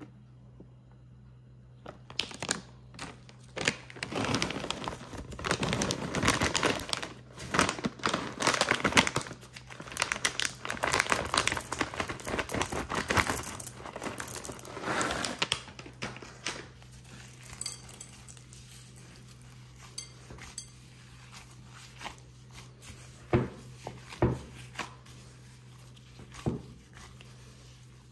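Plastic chocolate-chip bag crinkling as it is handled and opened and its chips are poured out, a dense run of crackle that fills the first half and then dies down. A few short knocks follow later.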